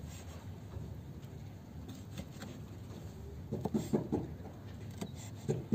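Kitchen knife chopping tomato on a wooden cutting board: a run of quick knocks about three and a half seconds in, and another near the end.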